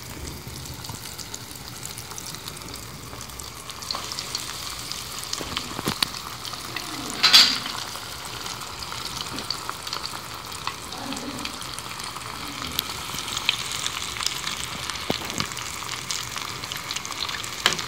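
Breadcrumb-coated potato balls deep-frying in hot oil in a small saucepan: a steady sizzle with many small crackling pops. About seven seconds in, a sudden louder burst of sizzling as a second piece goes into the oil.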